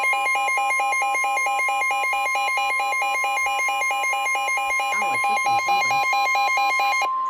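NOAA Weather Radio warning alarm tone, a single steady tone of about 1050 Hz, the signal that a warning message follows, here a severe thunderstorm warning. Over it a weather-alert radio's own alarm beeps in a rapid pulse, then cuts off abruptly about seven seconds in, leaving the steady tone alone.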